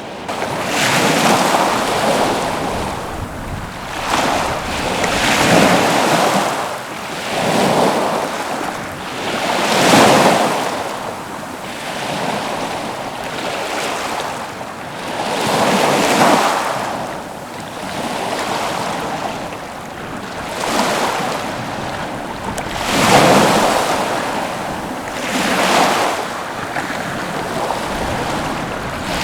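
Small ocean waves washing against the breakwater, swelling and falling back in surges every few seconds.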